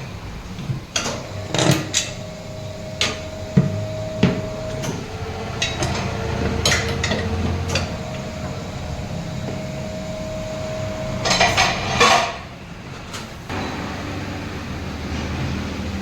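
Metal clanks and knocks of tyre-changing work on a car wheel rim, with a steady mechanical hum in two stretches of a few seconds each.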